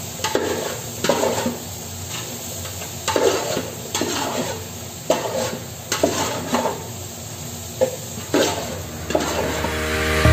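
A long spoon stirring and scraping potatoes and cauliflower frying in a large metal pot, with repeated scrapes against the pot over a steady sizzle.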